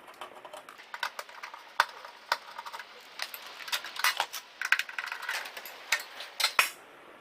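Irregular light metallic clicks, clinks and knocks of parts being handled inside an opened microwave oven, with sharper clacks around two seconds in and again near the end.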